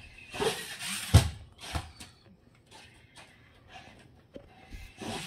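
1/24-scale micro RC monster truck with a brushless motor driving over carpet and cardboard ramps: short bursts of motor and tyre whir with a few hard thumps as it hits and lands, the loudest about a second in.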